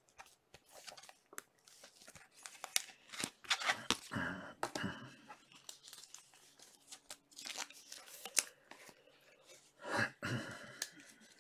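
Topps Chrome trading cards and their foil pack wrappers being handled up close: card edges clicking and sliding against one another, with bursts of wrapper crinkling and tearing.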